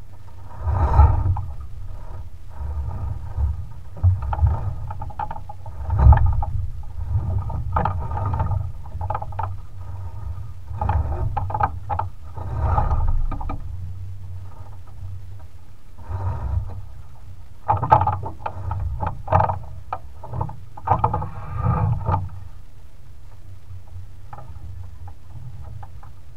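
Water rushing and splashing along a sailing yacht's hull as it moves through waves, in irregular surges every second or two over a low steady rumble.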